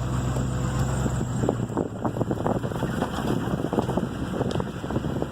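Pickup truck being driven across a farm field, seen from inside the cab. The steady low engine hum drops back about a second in, and a dense, irregular clatter and crackle takes over as the truck rolls over rough ground.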